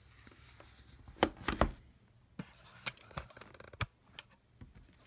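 Handling noise: a series of sharp clicks and knocks from hands moving over the opened laptop and the camera, the loudest cluster a little over a second in, then lighter single ticks spaced out after.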